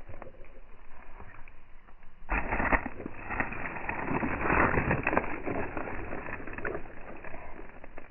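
Hens pecking seeds from a dried sunflower head: a run of sharp pecking clicks with dry rustling of the seed head, louder and busier from about two seconds in to past the middle.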